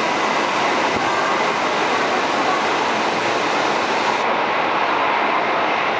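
São Paulo Metro Line 1 train pulling out along the platform, its cars running past with a steady rolling rumble. About four seconds in the sound cuts to a slightly duller take of the same kind of train noise.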